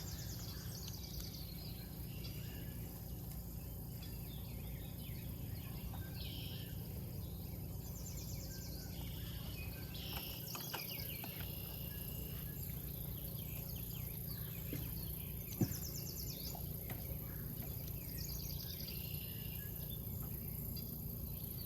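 Birds singing over a steady low background rumble: short, high, trilled song phrases repeating every few seconds, with a single soft knock about fifteen seconds in.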